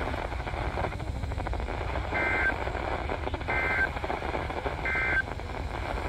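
Three short SAME/EAS end-of-message data bursts from a NOAA Weather Radio broadcast, heard through a handheld radio's small speaker. Each is a brief two-tone buzzing chirp of digital data; they come about a second and a half apart over steady radio hiss. They mark the end of the weather radio test message.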